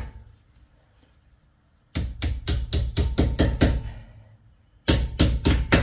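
Hammer tapping a pad retaining pin into a front brake caliper: a quick run of about ten blows, a pause of about a second, then four more.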